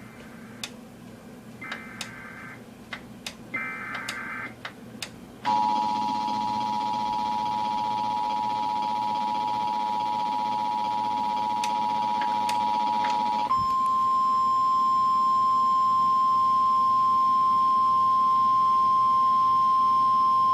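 Emergency Alert System tones for a flash flood warning. It opens with a few clicks and two short bursts of SAME digital header data. Then comes the EAS two-tone attention signal (853 and 960 Hz), held steady for about eight seconds. It switches to the single steady 1050 Hz NOAA Weather Radio warning alarm tone, which holds for the last seven seconds.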